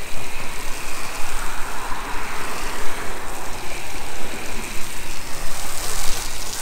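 Garden-hose foam gun spraying soapy water and foam at its highest soap setting onto a car, a steady hiss.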